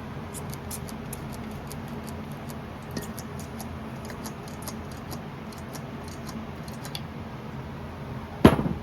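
Small metal parts handled on a workbench during hydraulic lifter priming: light ticking over a steady low hum, then one loud, sharp clink with a brief ring near the end.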